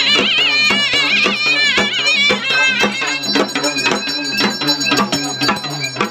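Traditional South Indian folk music: a high melody over a low steady drone and a regular drumbeat. The melody wavers strongly in pitch at first, then settles into held notes.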